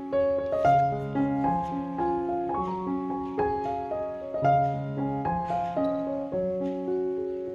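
Background piano music: a melody of single notes over held lower notes, starting one after another every half second or so.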